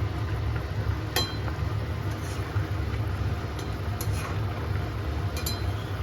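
Cookware clinking lightly a few times over a steady low hum.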